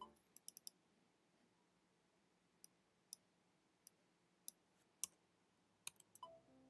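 Computer mouse clicking: a quick run of four clicks near the start, then single clicks scattered every half second or so, the loudest about five seconds in. Piano playback notes begin just before the end.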